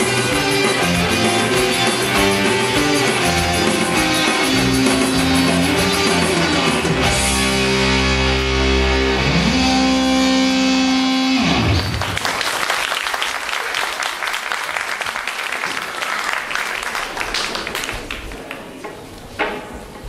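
Live rock band with electric guitar and bass guitar playing the close of a song, ending about 12 seconds in on a held chord with a sliding drop in pitch. Audience applause follows and fades away.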